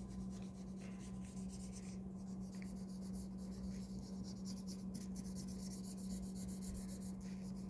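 Drawing on paper: a pen or pencil scratching in many quick short strokes, over a steady low electrical hum.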